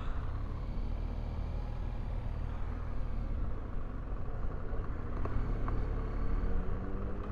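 BMW R1200GS flat-twin engine running under way, over a heavy low wind rumble; near the end its pitch climbs steadily as the bike accelerates.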